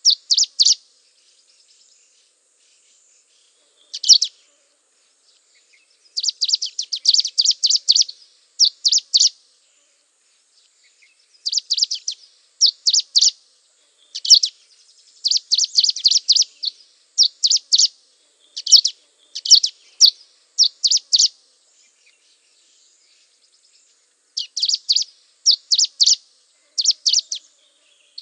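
Songbird chirping: short runs of quick, high chirps, several a second, broken by silent gaps.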